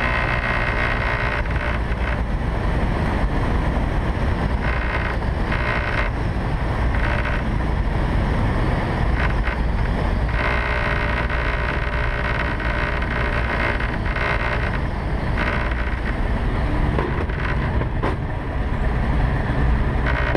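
Steady rush of wind and airframe noise in the cockpit of a RANS S-10 Sakota light aircraft coming in to land without its propeller, with the propellerless engine humming underneath. A deeper low rumble builds in the last few seconds.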